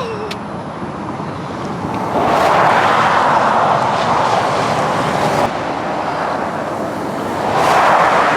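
Highway traffic rushing past close by, with two loud swells of passing vehicles.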